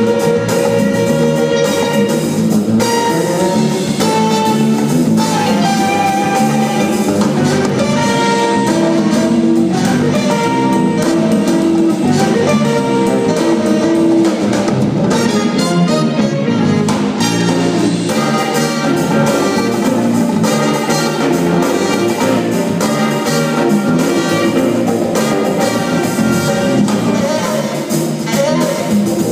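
Live jazz-funk band playing a steady groove: electric bass, electric guitar, drum kit, congas and keyboard, with held melody notes on top.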